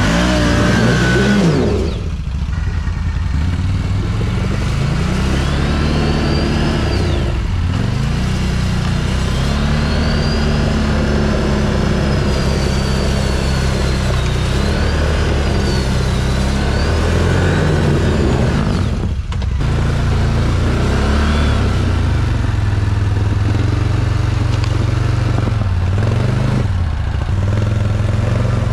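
ATV engine revving up and down again and again under changing throttle, with a high whine rising and falling with it; the sound dips briefly a couple of times.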